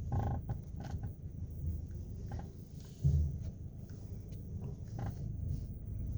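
Electric power steering of a 2018 Chevrolet Onix Joy clicking and creaking as the steering wheel is turned, with a louder dull thump about three seconds in. This is a steering fault that has continued even after the electric steering unit was replaced.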